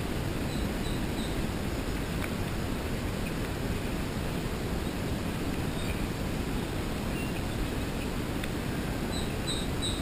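Steady low outdoor rumble, like wind on the microphone, with a few faint high bird chirps near the start and again near the end.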